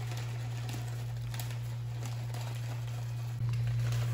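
Shoestring potato sticks shaken from a plastic bag, pattering onto a dish with light crinkling of the bag, over a steady low hum that gets a little louder near the end.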